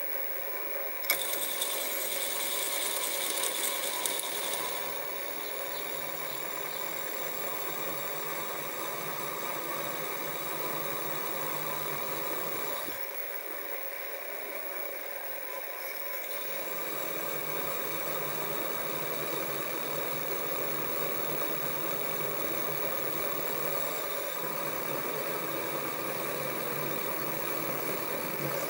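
Sieg SX2P mini mill's spindle motor running as a 3.5 mm drill bit cuts the exhaust passage into a steam engine cylinder: a steady mechanical whine with several tones. A sharp click about a second in is followed by a few seconds of high hiss. The low hum drops out for a few seconds past the middle, then returns.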